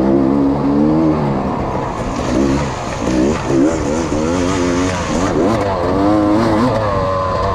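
Off-road racing motorcycle engine being revved hard and backed off again and again, its pitch rising and falling repeatedly as the throttle is worked over rough woods terrain.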